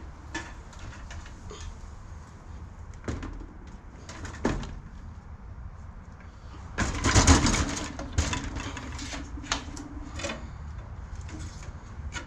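Hands working on a desktop PC case: scattered clicks and knocks of parts being handled, with a louder burst of rustling and clatter about seven seconds in, followed by a low steady tone lasting about two seconds.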